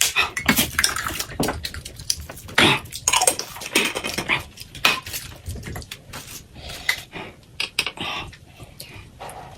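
Cutlery clinking and scraping against dishes during a meal, in many short irregular clicks.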